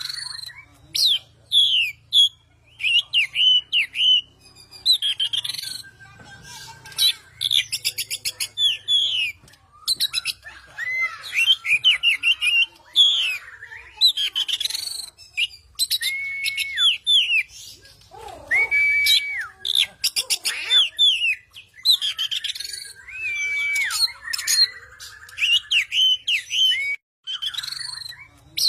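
Oriental magpie-robin (kacer) in full, non-stop song: loud whistled notes and slurred phrases mixed with fast rattling trills, with only brief pauses.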